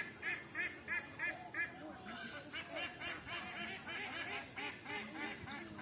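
A flock of ducks calling. A run of about six regular, honking calls comes in the first two seconds, then many overlapping calls from several birds at once.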